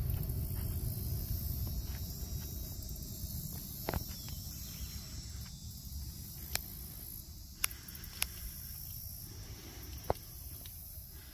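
Outdoor wetland ambience: a steady high insect drone, with a low rumble that fades away over the first few seconds. About five sharp, isolated clicks or snaps come at irregular intervals.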